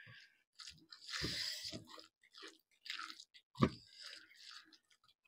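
Chewing and mouth sounds of someone eating chicken leg with rice by hand: soft, irregular chewing noises, with a longer hissing stretch about a second in and a sharper click a little past halfway.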